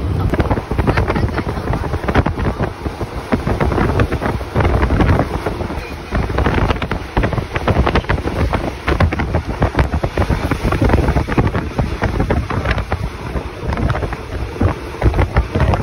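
Loud, gusty wind rushing in at the window of a moving passenger train and buffeting the microphone, over the train's running noise.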